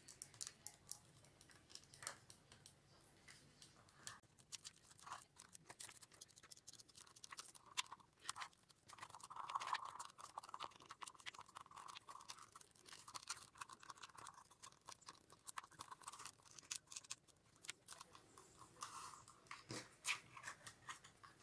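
Faint handling sounds of rolled newspaper tubes being threaded and pulled tight against a cardboard base and tin can: scattered small clicks and crackles with scraping rubs now and then.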